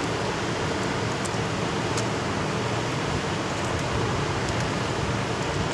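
Steady drone of a tanker ship's machinery on deck: an even hiss over a low, constant hum, with a couple of faint clicks.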